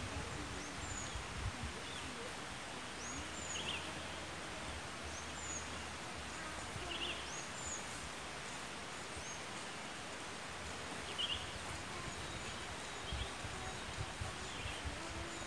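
Outdoor ambience: a steady background hiss with a small bird repeating a short, high two-note chirp every two seconds or so, and a few lower chirps now and then.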